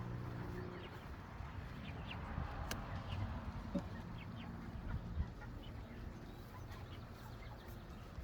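Meat chickens clucking and peeping, with short high chirps scattered throughout. A low steady hum is present at the start and fades out about a second in.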